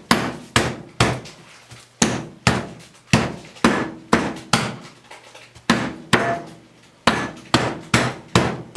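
Bottom of a cast iron skillet pounding a pork tenderloin flat through plastic wrap on a wooden cutting board: a steady run of blows, about two a second.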